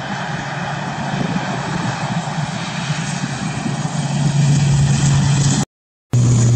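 ATR 72 twin turboprop at takeoff power on its takeoff roll: a steady low propeller drone over a rushing engine noise, growing louder about four seconds in. The sound drops out for a split second near the end.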